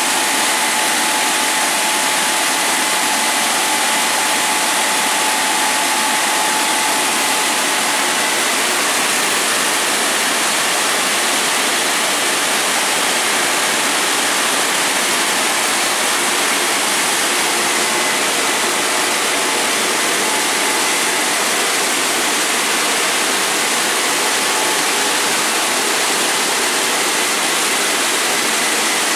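WashTec Combiwash rollover car-wash gantry running over a car, making a steady, even rushing noise with a faint whine that stops about eight seconds in.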